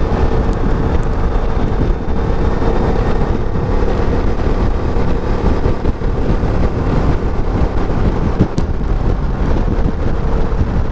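Wind buffeting the microphone of a BMW C650 GT maxi-scooter riding at steady road speed, with the scooter's engine running underneath as a steady drone.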